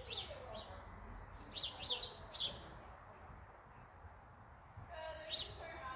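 A small bird chirping: short high notes that slide down in pitch, several in quick succession early on, a pause, then another near the end.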